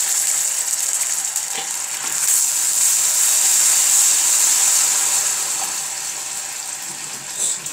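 Caramel sauce sizzling and bubbling hard as hot caramelised sugar and ghee boil up with freshly added heavy cream, stirred with a wooden spatula. The hiss is loudest in the middle and dies down a little toward the end.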